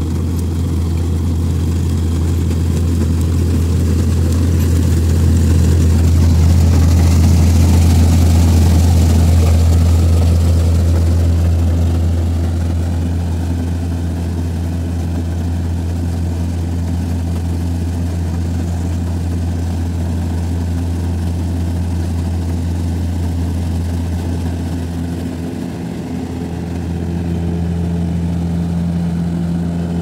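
Combine harvester's diesel engine running with a steady deep hum, swelling louder about a third of the way in as the machine passes close, and dipping briefly near the end.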